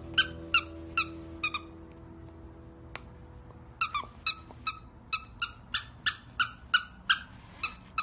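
Squeaky plush dog toy squeaking as a puppy chews it: four sharp squeaks in the first second and a half, a pause, then a quick string of squeaks about three a second.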